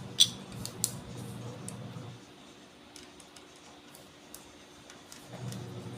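Small sharp clicks and light ticks of a screwdriver and screws on the plastic case of a multimeter being screwed back together, with two louder clicks in the first second.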